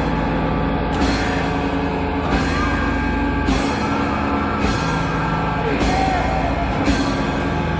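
Live rock band playing loud, heavily distorted music with drum kit and cymbal hits about once a second.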